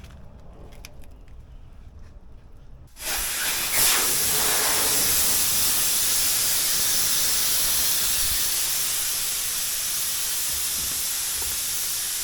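Air hissing out of a pickup truck tire as it is deflated. The hiss starts suddenly about three seconds in and then runs steadily.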